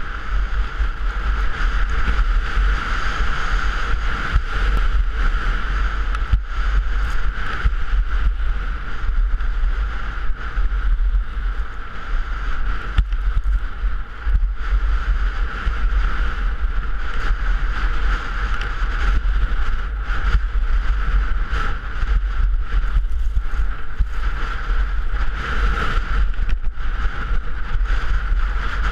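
Wind rushing over a head-mounted camera's microphone while skiing downhill at speed, with a heavy, steady low rumble. Under it, skis hiss and scrape over firm, tracked-up snow, with many short crackles.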